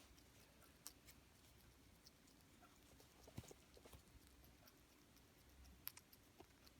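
Sugar glider making its faint warbly sound: soft scattered clicks and a few brief chirps. The owner hears it when the glider is looking for food or attention.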